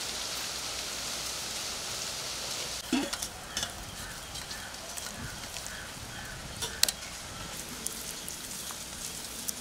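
A steady hiss for the first few seconds, then wet squelching and small clicks as a hand mixes thick chili-garlic masala paste in a steel bowl and rubs it onto needlefish.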